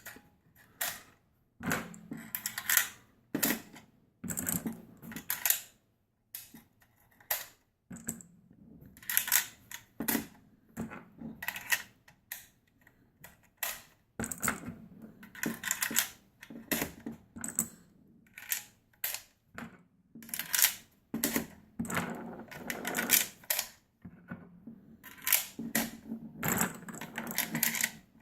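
Cartridges being pushed into an AR-15 magazine with a MagLula loader: irregular runs of sharp plastic-and-metal clicks and clacks with short pauses between them.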